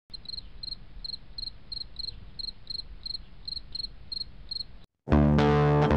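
Insect chirping, about three short high chirps a second, over a low hiss. It cuts off about five seconds in, and loud music with guitar begins.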